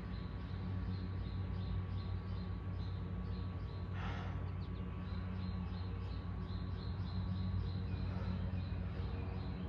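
Steady low hum with a faint, regular high chirping about two to three times a second, and one breath out about four seconds in.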